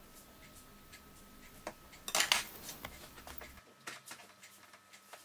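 Kitchen knife and sliced mushrooms handled on a cutting board: a short clatter about two seconds in, then a few light taps.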